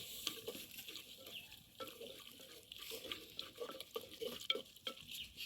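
Cooking stick stirring leafy greens, cherry tomatoes and spring onions in a pot: an irregular run of small scrapes and knocks against the pot, several a second.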